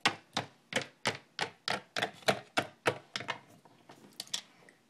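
A quick series of light, sharp taps, about three a second, growing fainter near the end: a small plastic toy figure being hopped across a hard surface.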